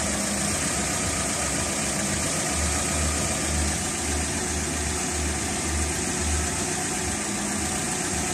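Car engine idling in first gear with the jacked-up front hub and brake disc turning freely, without squealing: the refitted caliper with cleaned guide pins no longer drags on the disc. A low throb repeats about twice a second through the middle.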